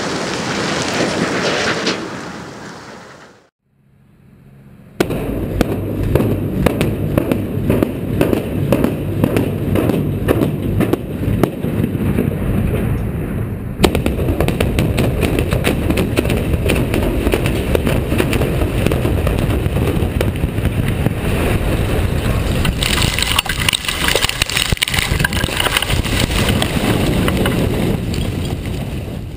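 Explosives implosion of a 17-story structural-steel building. The rumble of an earlier collapse dies away in the first few seconds. A fresh rapid crackle of many sharp explosive charges follows, then a long, loud rumble of the steel frame coming down, with rushing and clattering debris that builds near the end before fading out.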